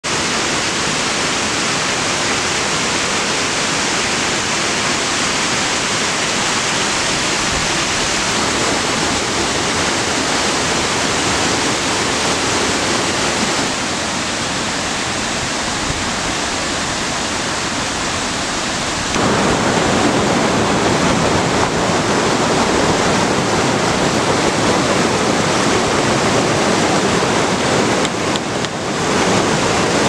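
Rushing mountain stream water tumbling over rocks and a small cascade, a steady rush that steps up in loudness about two-thirds of the way through.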